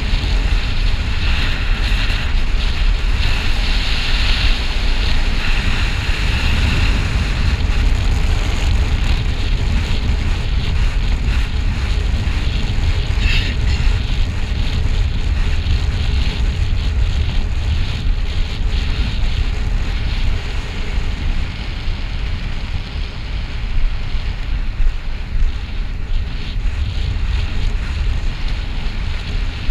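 Wind rushing over the microphone of a camera riding on a road bike during a fast downhill descent: a loud, steady, deep rumble of buffeting air with a hiss above it.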